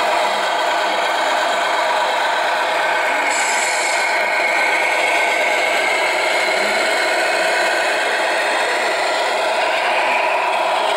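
Radio-controlled model truck running: a steady mechanical rattle and whir, with a brief hiss about three seconds in.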